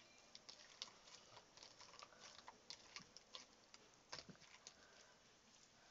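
Slime being kneaded and mixed by hand, giving faint, irregular little clicks and pops.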